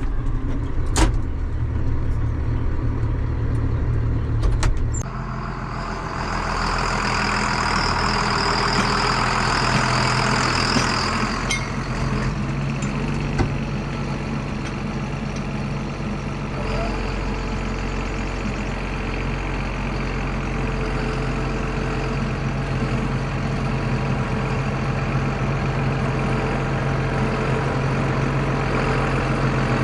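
Farm tractor's diesel engine idling steadily. There are a few sharp clicks in the first five seconds, and a louder hissing, whirring stretch from about six to eleven seconds.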